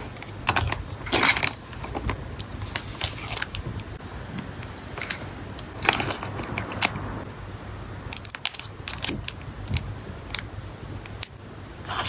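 Paper cards and wrapping paper handled by hand: short crinkly rustles, taps and sharp clicks, in irregular clusters, as a small stack of printed cards is squared up and wrapped.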